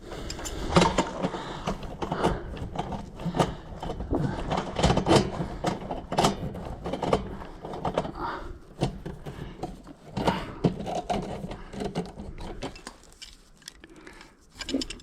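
Irregular metal clicks, knocks and scrapes of a weather-tight EMT conduit connector and its locknut being fitted into a drilled hole in a metal sub panel and worked tight; the clicking thins out near the end.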